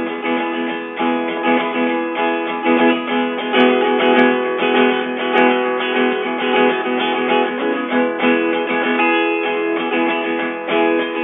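Background music: strummed acoustic guitar in an instrumental stretch of a song, with no singing.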